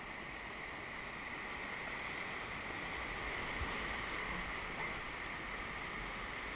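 Whitewater rapid rushing around an inflatable raft: a steady noise of churning water that grows a little louder midway.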